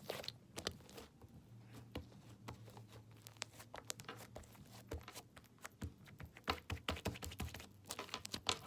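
Homemade slime being squeezed and pulled apart by hand, giving irregular small crackles and pops that come thickest about six and a half seconds in, over a faint low hum.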